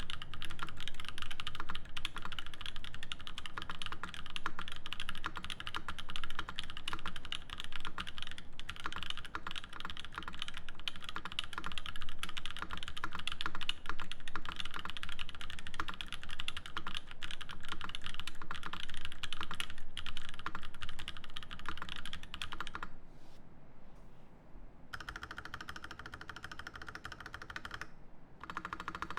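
Fast, continuous typing on a Matrix Noah V1 mechanical keyboard with lubed Gazzew Boba U4T tactile switches on an aluminium plate and GMK keycaps, a dense run of key clacks. The keys go quieter for a moment about 23 seconds in, then resume more softly.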